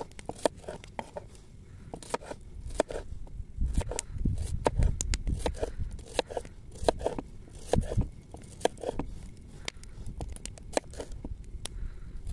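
A chef's knife slicing a cucumber into rounds on a wooden cutting board, each cut ending in a sharp tap of the blade on the board, about two or three cuts a second at an uneven pace. A low rumble swells under the cutting in the middle.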